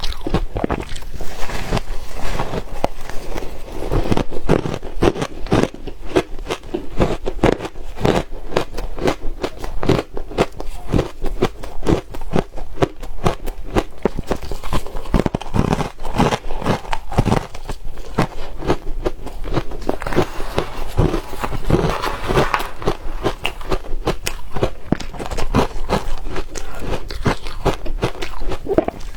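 A person biting and chewing soft, crushed ice up close: continuous dense crunching and crackling, many crunches each second.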